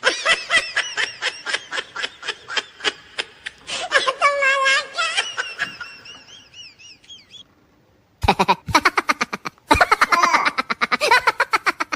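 Laughing sound effects: rapid, repeated bursts of laughter. A high wavering squeal trails off after about six seconds, there is a short pause, and a second burst of fast laughter starts about eight seconds in.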